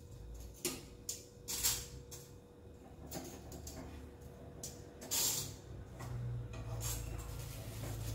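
Metal tongs clicking and scraping against a non-stick frying pan as slices of bread are turned, with several short hissing bursts, the loudest about a second and a half and five seconds in. A low steady rumble runs underneath and grows louder near the end.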